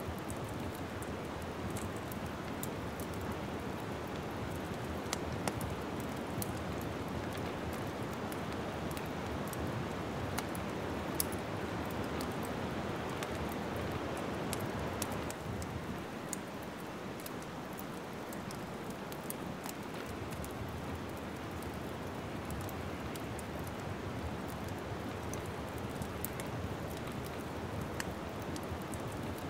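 Wood fire crackling in a fireplace: a steady soft hiss of burning logs with frequent small, sharp pops and snaps.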